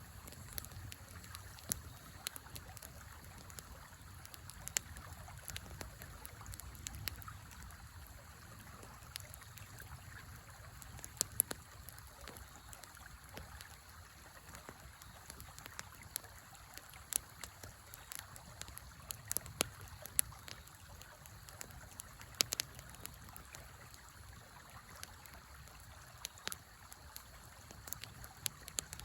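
Wood fire crackling with frequent irregular sharp pops, over the steady rush of a flowing river.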